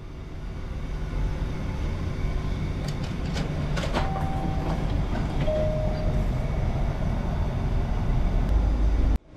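Old coin-operated omikuji fortune vending machine running to dispense a paper fortune: a low steady mechanical rumble that grows louder, with a few clicks about three to four seconds in and two short tones. It cuts off suddenly near the end.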